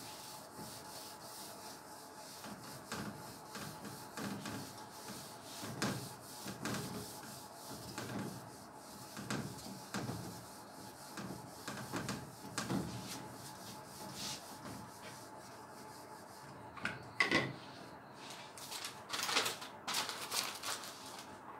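Whiteboard eraser rubbing across a whiteboard in repeated wiping strokes. Near the end, sheets of paper rustle as pages of notes are handled.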